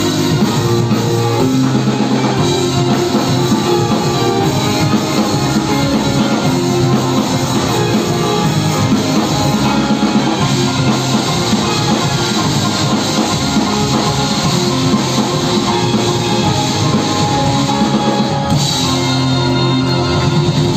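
Live amplified string ensemble of violins and cellos with drum kit and keyboard playing a rock ballad arrangement, loud and steady.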